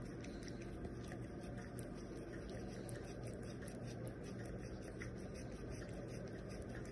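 A small dog licking ice cream out of a small cup: quick, wet lapping with many small irregular tongue clicks and smacks, over a faint steady hum.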